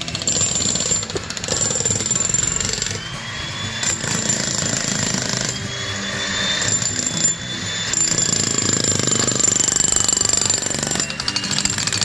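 Jackhammers breaking up solid rock and concrete: a loud, rapid, continuous hammering that eases a little in the middle stretch before picking up again.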